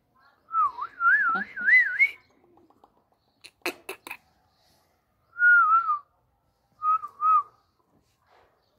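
Someone whistling a wavering, warbling call to a pet Indian ringneck parakeet. The first phrase climbs in pitch, and two shorter phrases follow later. A few sharp clicks fall in the middle.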